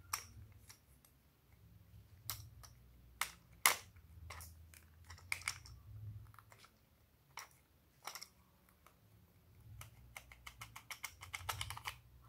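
Hard plastic toy container handled and twisted apart by hand: scattered sharp plastic clicks and taps, with a quick run of clicks near the end.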